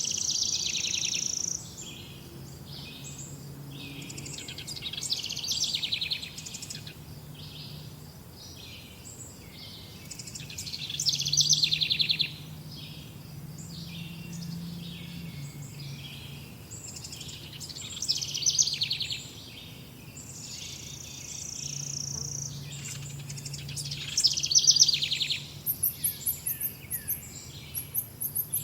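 Several songbirds chirping and singing, with overlapping short high calls and fast trills. The loudest bursts come about a third of the way in, near the middle and about three-quarters through.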